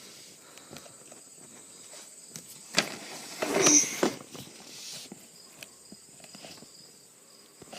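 Footsteps and light handling noise, with a sharp click about three seconds in and a louder brief scuffle just after it.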